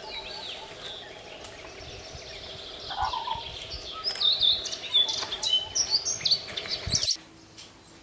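Wild birdsong: many short whistled and chirping notes from songbirds, busiest in the second half, over a steady low background hum. It stops abruptly about seven seconds in.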